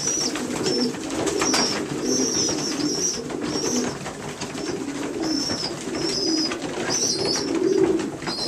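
Newly weaned young racing pigeons, about four weeks old: short high-pitched squeaks repeating every half second or so over continuous low cooing, with scattered light clicks.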